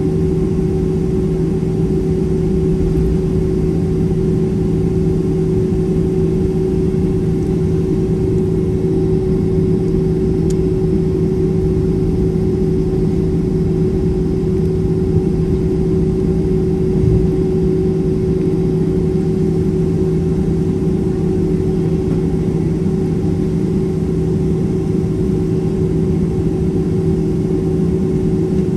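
Steady cabin drone of a Boeing 767-300ER taxiing on idling turbofan engines, a constant low hum with a steady rumble underneath. There is one soft thump about two-thirds of the way through.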